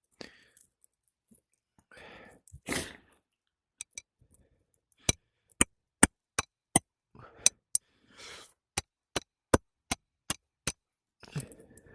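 Hammer blows on a shingle roof: about a dozen sharp strikes in a quick, even rhythm of roughly two a second, starting a few seconds in after some rustling and scraping of shingles.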